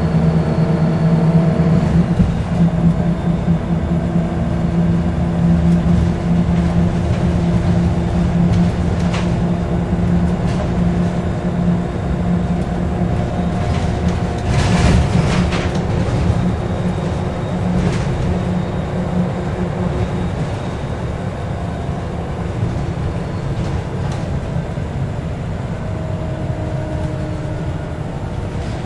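Interior of a Scania L94UB single-deck bus on the move: the engine's steady drone, shifting in pitch a few times as the bus changes speed, with the cabin's rattles and clicks and a brief burst of hiss about halfway through.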